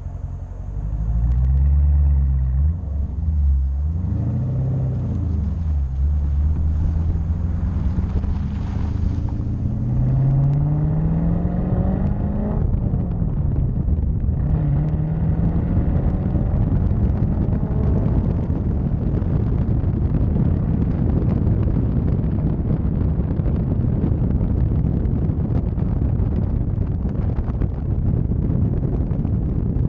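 Dodge Challenger Scat Pack's 6.4-litre HEMI V8 running straight through with its mufflers deleted, heard from inside the car as it is driven: the revs rise and fall in the first few seconds, climb steadily and drop at a gear change about twelve seconds in, climb again, then settle into a steady loud drone with road noise.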